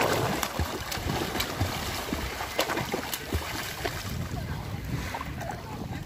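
Swimmers splashing and kicking at the surface of shallow sea water, a busy mix of small splashes and sloshing, with wind buffeting the microphone.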